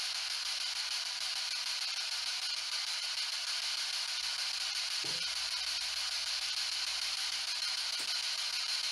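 Steady static hiss from a ghost box, a radio device used for spirit communication, with one faint click near the end.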